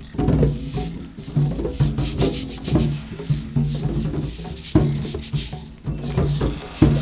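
Music-room percussion played to imitate nature: scraping and shaking instruments rubbing and rattling over repeated low notes, with two sharp hits, one a little before the end and one right at it.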